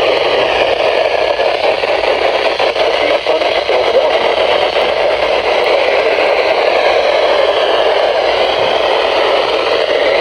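Loud, steady radio static from a weakly received broadcast, a rough hiss with no clear voice coming through.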